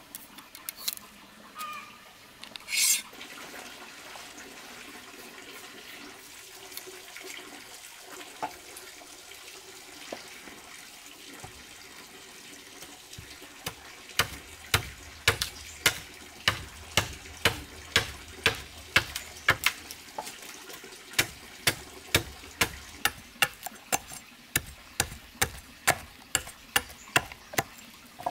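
Machete chopping on a wooden stump block: sharp knocks at a steady pace of about two a second through the second half, with a short break in the middle. Before that, quieter rustling and cutting as bamboo is split into thin strips, with one brief louder swish.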